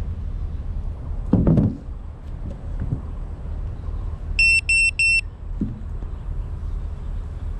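Three short, identical electronic beeps in quick succession about four and a half seconds in, over a steady low wind-and-handling rumble on the microphone, with a brief louder rustle or knock about a second and a half in.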